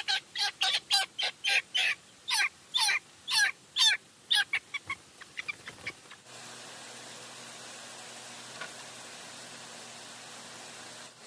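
Chickens squawking, loud repeated calls about two a second that thin out toward six seconds in. Then they stop abruptly and a steady rushing noise carries on.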